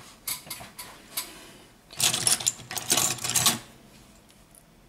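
Clicks and a quick run of clattering as an opened Xiaomi Mi 8 phone body is picked up and handled on a work mat, the clatter densest from about two seconds in until about three and a half.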